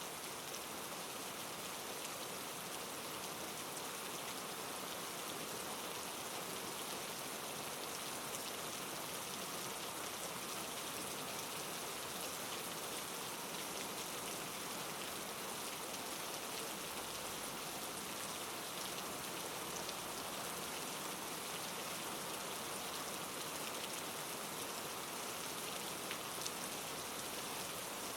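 Steady rain falling, with faint pattering drops.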